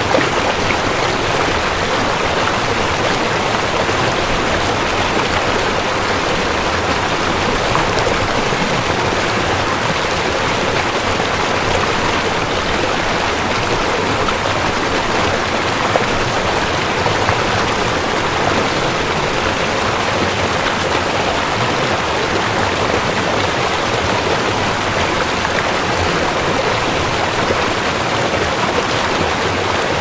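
River water flowing: a steady, even rush of water with no let-up.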